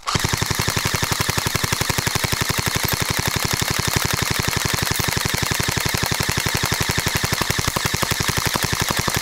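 Electric airsoft gun (AEG) firing one long full-auto burst: the motor-driven gearbox cycling and BBs firing in a rapid, even rattle that starts abruptly.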